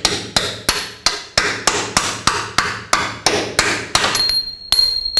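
Steel bolt being hammered through the Volvo V70's front lower control arm bushing and mounting bracket: a steady series of metal-on-metal strikes, about three a second. A high ringing tone comes in near the end.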